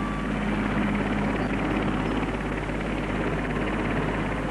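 Twin-turbine Westland Wessex helicopter in flight, a steady, even mix of turbine and rotor noise.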